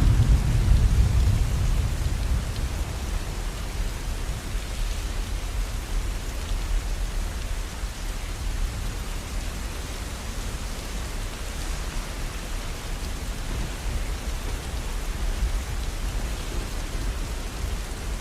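Steady rainfall hiss, with a low rumble of thunder dying away over the first couple of seconds.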